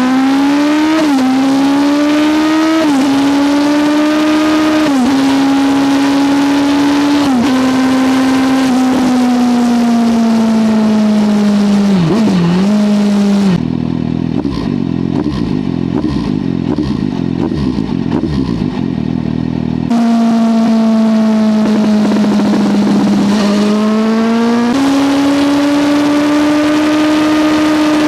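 Suzuki GSR 750 inline-four engine running through a Dominator aftermarket exhaust. Its note holds high and fairly steady with several brief dips. In the middle, for about six seconds, the clear note gives way to a quieter, duller rumble, then comes back and rises again.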